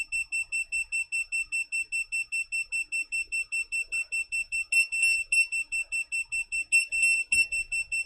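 Handheld carbon monoxide meter's alarm beeping rapidly on one high pitch, about five beeps a second, set off by carbon monoxide from smouldering tissue paper in the test box. A few beeps about five and seven seconds in are louder.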